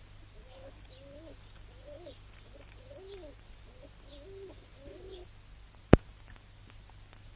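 Cooing bird calls, short rising-and-falling notes about two a second in two overlapping voices, stopping about five seconds in. Just before six seconds comes a single sharp crack, the loudest sound.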